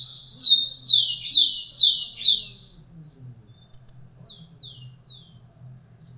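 Rufous-collared sparrow (tico-tico) singing: a rapid run of about five clear whistled notes, each sliding downward, ending about two and a half seconds in. A fainter run of three similar down-slurred notes follows after a short pause.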